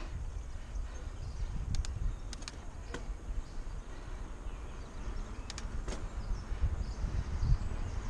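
Wind rumbling on the microphone of a camera riding on a moving mountain bike, with tyre and trail noise. A few sharp clicks and rattles from the bike come through about two to six seconds in.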